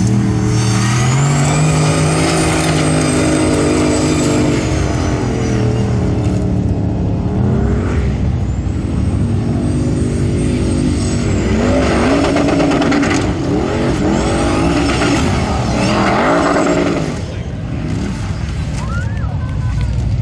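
Formula Offroad buggy engine revving hard as it climbs a steep sand hill, the revs rising and holding, dipping, then climbing again in quick up-and-down swings. It is quieter for the last few seconds.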